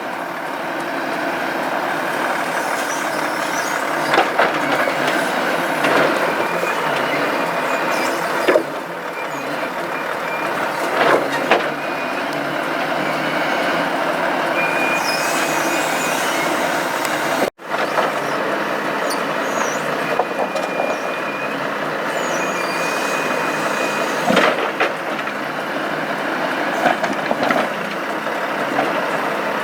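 Volvo FH logging truck running while its Palfinger Epsilon timber crane loads logs: a steady engine and hydraulic noise with scattered knocks of wood and a brief high whine now and then.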